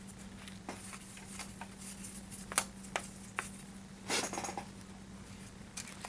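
A few light clicks and a short scrape of hard plastic as the PS5's black plastic housing frame is handled and picked up, over a faint steady low hum.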